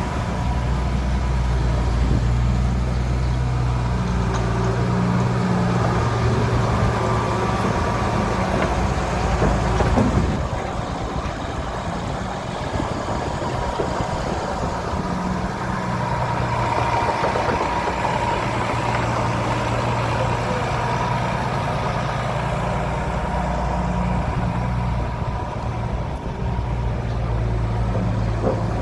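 Demag DF-140 C asphalt paver's diesel engine running steadily, with a faint whine above it and a short louder surge about ten seconds in.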